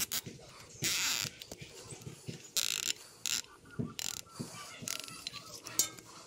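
A nylon zip tie being pulled tight, its teeth ratcheting through the lock in short zips about a second in and again past two and a half seconds, among small clicks of handling.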